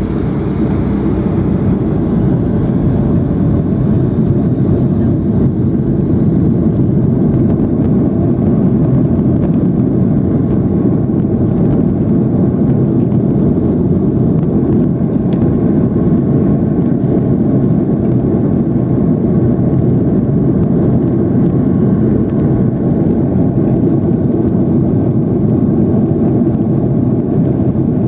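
Boeing 757-200 engines and rushing air heard from inside the passenger cabin as a steady, loud, even noise, typical of the aircraft climbing after takeoff.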